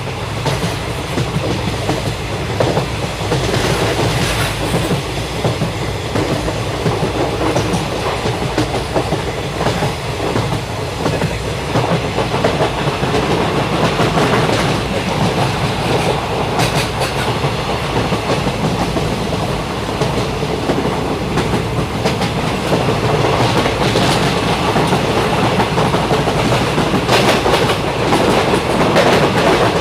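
Passenger train coach running along the track: a steady rumble of wheels on rail with rhythmic clickety-clack over the rail joints.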